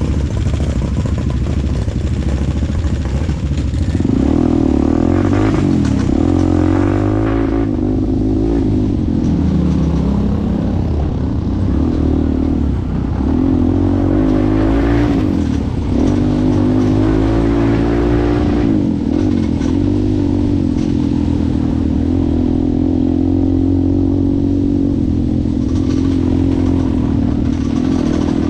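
ATV engine running under way, its pitch rising and dipping repeatedly as the throttle is worked, then holding steady near the end.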